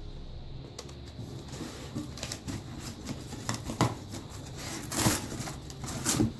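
Corrugated cardboard packing being pulled and bent out of a shipping box: a busy run of crinkles, scrapes and sharp knocks that grows louder and denser from about a second and a half in, loudest near the middle and again a little later.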